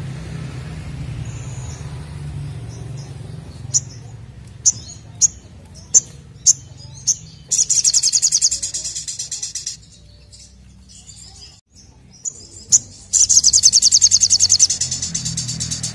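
Male olive-backed sunbird singing: six or so sharp, high single chips a half-second or so apart, then a fast trill lasting about two seconds. A couple more chips follow, then a second long, fast trill near the end.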